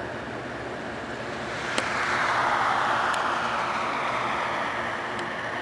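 Vehicle noise swelling about two seconds in, then slowly falling in pitch and fading, over a steady rumble.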